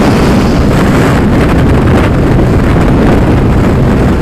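Loud wind buffeting the microphone of a rider on a moving TVS Ntorq 125 scooter, with the scooter's engine and road noise underneath.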